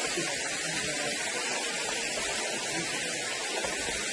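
Steady hiss of water running over rocks in a low-flowing stream.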